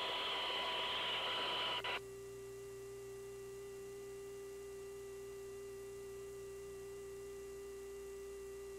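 Hiss of an open radio or intercom channel, which cuts off abruptly about two seconds in. A steady electrical hum with faint higher tones is left.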